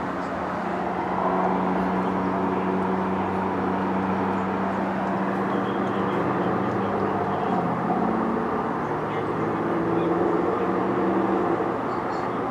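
A steady mechanical hum with a low pitched tone over a haze of noise, its pitch dipping briefly about eight seconds in.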